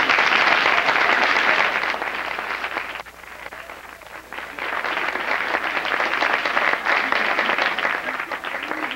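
Audience applauding, many hands clapping; it thins briefly about three seconds in, then picks up again.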